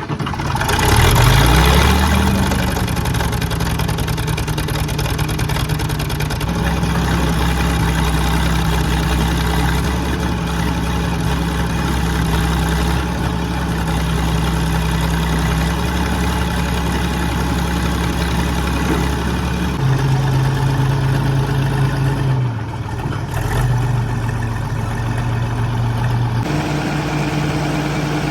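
Case 1150 crawler dozer's diesel engine catching and revving up just after starting, then running at a steady speed. About twenty seconds in it drops to a lower speed, and changes speed again near the end.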